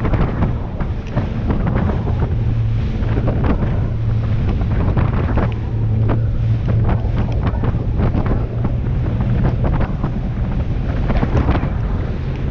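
Rigid inflatable boat running fast through choppy sea: strong wind buffeting the microphone over the steady drone of the boat's engine, with irregular hits of wind and spray.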